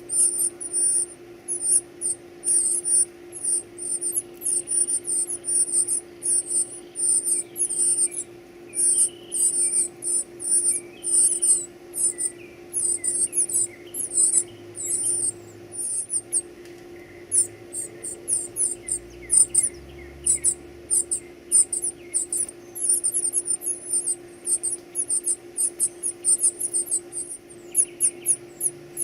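Baby birds begging with rapid, shrill, high-pitched cheeps, several a second without let-up, over a steady low hum.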